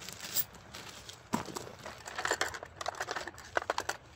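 Plastic crinkling and small hard parts clicking as hands rummage through a plastic parts organizer, with a run of quick clicks near the end.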